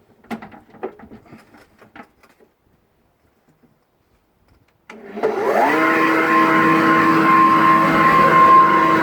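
A few clicks and knocks, then about five seconds in the Lagler Trio three-disc floor sander is switched on: its motor spins up with a rising whine and settles into a steady, loud running hum, showing it in good working order.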